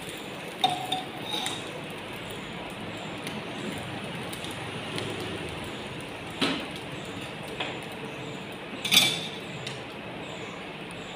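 Small metal spoon and cup clinking against each other and against brass puja vessels: a few sharp, ringing clinks in a cluster near the start, then single ones, the loudest about nine seconds in, over a steady low hiss.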